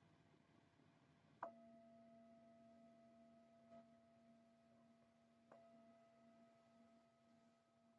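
Meditation bell struck twice, about four seconds apart, each stroke ringing on in several steady overlapping tones that fade slowly; the second stroke is softer. It is the bell that closes a guided meditation.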